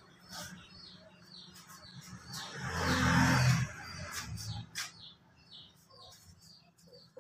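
Small birds chirping over and over in short falling chirps, several a second. About halfway through comes a loud rush of noise lasting about a second, and there are a few sharp clicks.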